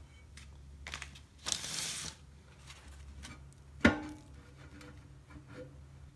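A rusty front brake drum of a 1947 GMC truck being worked loose on its hub by gloved hands: scattered light metal clicks and a scraping rustle about a second and a half in, then one sharp metallic clunk with a short ring about four seconds in.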